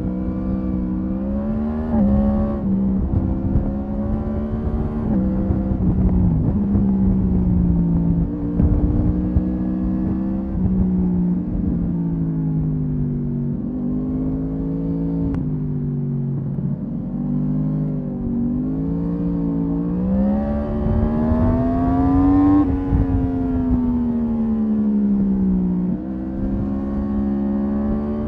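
Yamaha MT-10's 998 cc crossplane inline-four engine heard onboard, revving up and easing off again and again. The pitch climbs and drops several times, with the longest climb peaking about three-quarters of the way through before falling away.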